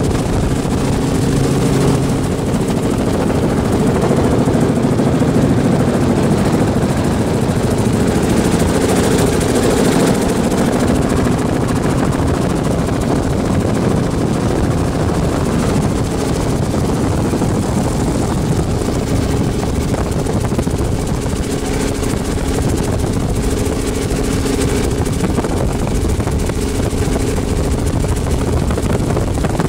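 Helicopter in flight, heard from inside the cabin: engine and rotor running steadily, a loud constant noise with a low hum.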